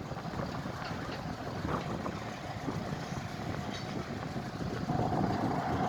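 A vehicle engine running steadily. About five seconds in, a thin steady whine comes in on top.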